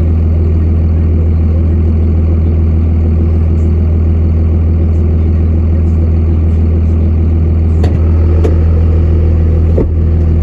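Pickup truck engine running, a steady low drone heard from inside the cab, with a couple of brief knocks near the end.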